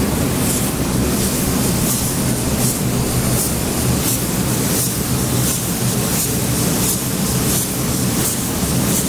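Paint spray gun hissing steadily as coating is sprayed onto an excavator's boom, over a steady low hum.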